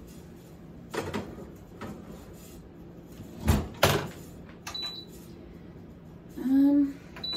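A metal Bundt pan is set into a countertop oven and the oven door shuts with a pair of knocks. Then the oven's control panel gives two short high beeps as the bake time is set.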